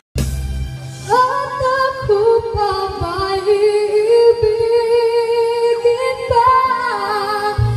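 A woman singing a slow melody in long, wavering held notes, almost unaccompanied; a low bass accompaniment is heard briefly at the start and comes back near the end.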